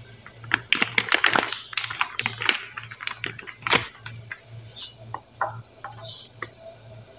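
Plastic packet of banana-fritter flour crinkling and rustling as flour is shaken out of it into a bowl of batter, a dense run of crackles lasting about three seconds. After that come a few light clicks of a metal spoon against the ceramic bowl.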